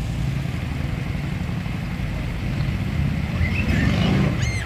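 Outdoor city street ambience: a steady low rumble of traffic and crowd, with a few short, high-pitched squeals in quick succession near the end.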